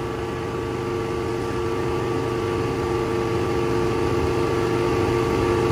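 Refrigeration service equipment running, a refrigerant recovery machine and vacuum pump: a steady motor hum with a couple of steady tones, growing slightly louder.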